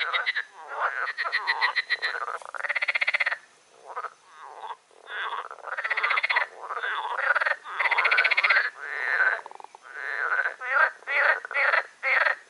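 Frogs croaking in a loud chorus: overlapping pulsed calls come in bouts of about a second, with short pauses between them.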